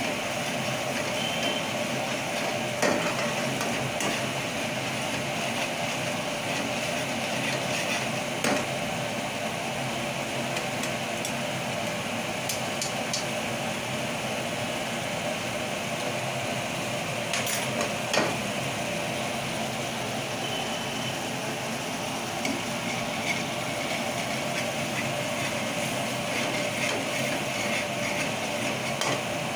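A metal ladle stirring thick gravy in a kadai, with a few sharp clinks of the ladle against the pan over steady background kitchen noise.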